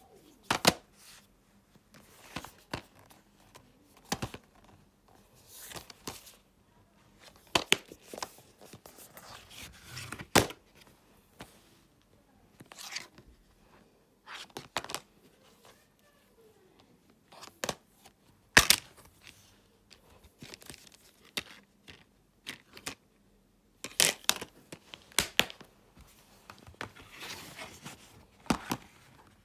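Blu-ray and DVD cases being handled: irregular sharp plastic clicks and taps mixed with short rustles.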